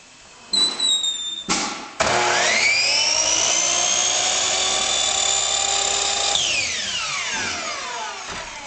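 Electric miter saw cutting a PVC grill frame piece at an angle. After a brief whir, the motor spins up with a rising whine, runs steadily for about four seconds, then winds down with a falling whine once the trigger is released.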